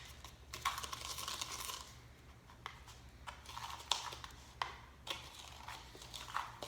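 Faint handling noise of raw bacon strips being peeled and wrapped around a chicken breast: a soft rustle in the first couple of seconds, then a few scattered small clicks and ticks.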